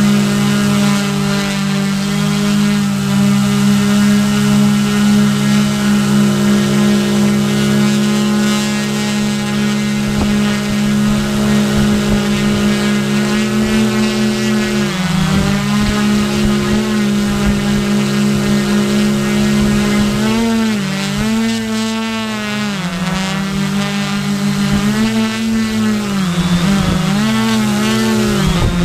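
Quadcopter's electric motors and propellers buzzing in flight with a steady pitch, then from about halfway the motors' several pitches rise and fall and cross one another as their speeds change.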